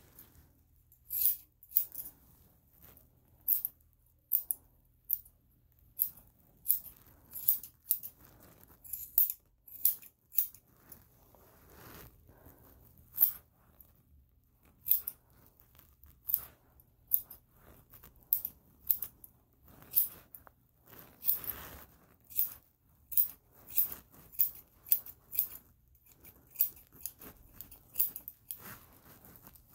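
Steel grooming scissors snipping dog fur around a paw: short, crisp cuts in an irregular series, often one or two a second, with brief pauses between runs.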